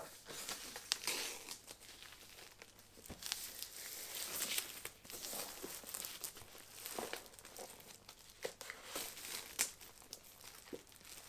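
Packaging crinkling and rustling as it is handled and opened, in short irregular bursts with a few small clicks and knocks.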